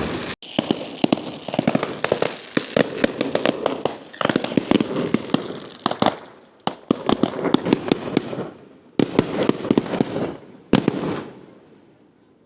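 Aerial fireworks display: dense, rapid crackling pops in several waves, each fading out, dying away near the end.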